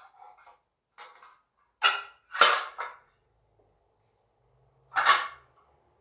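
A door closer and its cover clacking as they are handled: a few light knocks, then two sharp clacks about two seconds in and another near the end.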